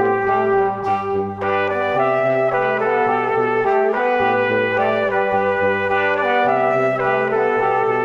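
Instrumental background music: a sustained melody over a bass line that changes note every second or so.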